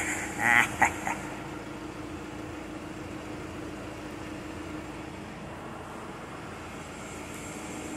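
Steady mechanical hum with a constant low tone. In the first second, a few short high-pitched puppy yips and a wavering squeal during play-biting.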